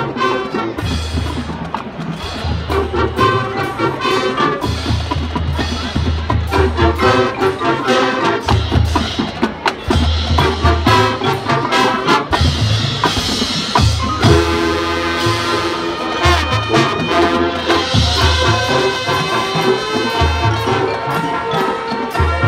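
High school marching band playing a jazz arrangement: brass section over drumline percussion, with low bass-drum hits keeping a steady beat.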